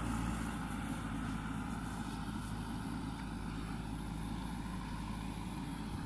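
Diesel engine of a JCB 3DX backhoe loader running steadily as it works the soil, heard from a distance.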